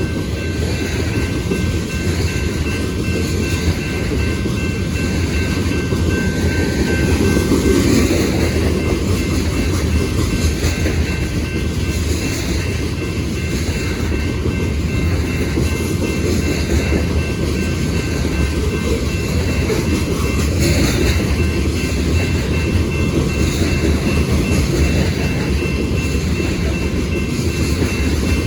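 Freight train cars rolling past: a steady heavy rumble with the recurring clickety-clack of wheels crossing rail joints.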